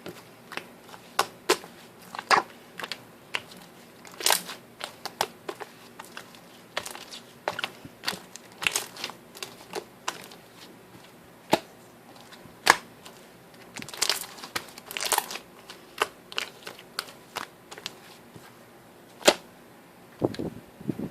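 Slime being pressed, poked and stretched by hand, making irregular sharp pops and crackles, some in quick clusters.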